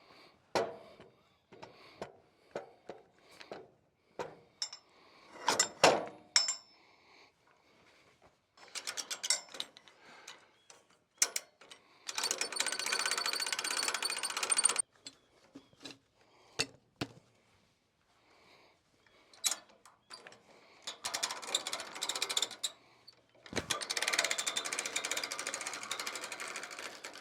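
Metal knocks and clanks as log-turner winch rigging is handled, with two long spells of rapid rattling clicks, one of about three seconds near the middle and one of about five seconds near the end.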